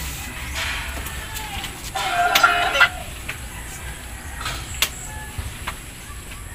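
A rooster crowing once, about two seconds in, lasting just under a second. A sharp click follows near five seconds.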